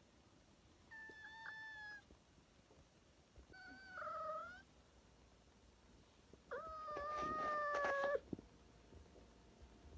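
Tabby house cat meowing three times, each call a second or so long, the third longest and loudest.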